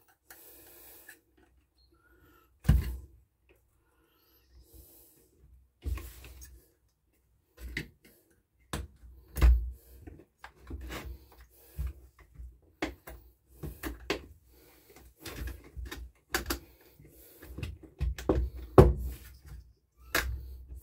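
Irregular clicks, taps and knocks of hands and a hand screwdriver working at a Homelite petrol chainsaw's plastic air filter housing as its screws are undone, with a few louder knocks.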